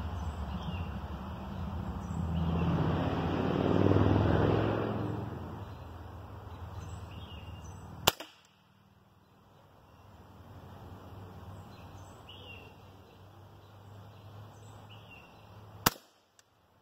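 Two shots from a .25-calibre Hatsan Invader Auto semi-automatic PCP air rifle, about eight seconds apart, each a sharp crack. In the first few seconds a low rumbling noise swells and fades, with faint bird chirps throughout.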